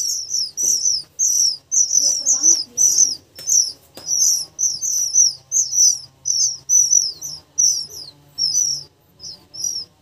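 Oriental magpie-robin (kacer) nestlings begging for food: a rapid run of short, high chirps from several chicks at once, two or three a second, thinning out and growing quieter near the end.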